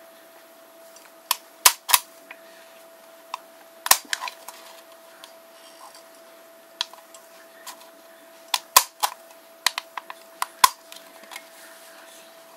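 Hand-held hole punch snapping through the thin aluminium wall of a soda can: about a dozen sharp clicks at irregular intervals, a few around two and four seconds in and a quick cluster in the last few seconds.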